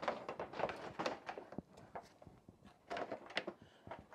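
Plastic front bumper cover of a Cadillac CTS being wiggled and pulled loose: an irregular run of small plastic clicks and knocks with scraping in between, a little busier about three seconds in.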